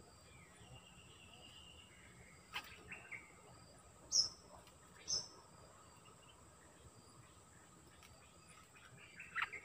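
Bulbuls calling in short chirps and brief whistled phrases. The loudest are two sharp high notes about a second apart in the middle, with a cluster of calls near the end. A steady high insect drone runs behind them.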